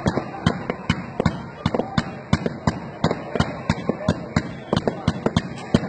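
Aerial fireworks bursting: a rapid, irregular string of sharp bangs and pops, several a second, with no pause.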